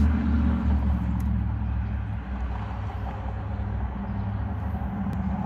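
A large vehicle's engine running, a steady low rumble that slowly grows quieter.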